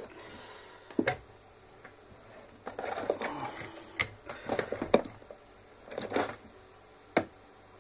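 Hands handling the Saturn MC9185 multicooker's plastic housing, wiring and control board during disassembly: scattered plastic clicks and knocks with rustling between them.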